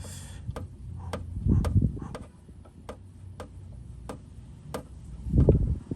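Steady mechanical ticking, about two clicks a second, with two low thuds, one about one and a half seconds in and a louder one near the end.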